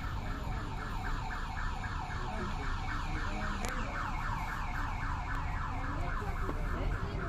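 A rapid electronic chirping, about four short chirps a second repeating evenly, over a low traffic rumble.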